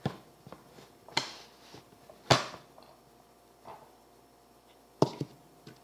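Tableware and objects being handled on a table: a few sharp knocks and clatters with brief scraping between them, the loudest about two seconds in and another sharp knock near the end.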